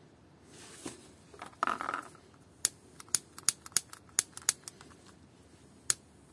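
Small hand-work noises on wiring: a brief scrape, then a run of about ten sharp, separate clicks over two seconds, with one more near the end.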